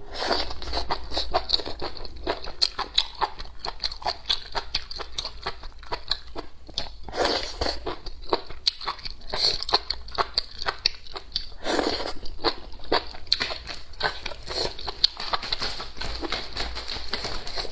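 Close-miked eating: chewing mouthfuls of chicken soup with velvet antler mushrooms, a steady run of small wet mouth clicks with a few louder, longer mouth sounds.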